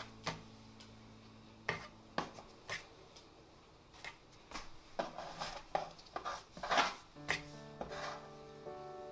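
Irregular light knocks, taps and rubbing from hands and a tool working bread dough on a work surface, over soft background music whose sustained notes fade in the first seconds and return near the end.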